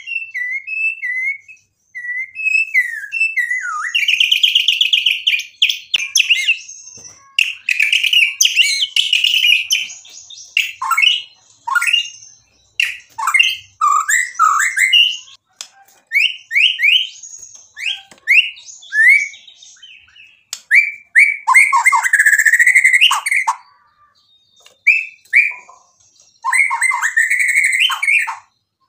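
White-rumped shama (murai batu) singing a long, varied song: clear whistles, rapid trills and quick down-sweeping notes in phrases broken by short pauses, with a harsher rasping phrase near the end. The song is full of 'isian', phrases mimicked from other birds.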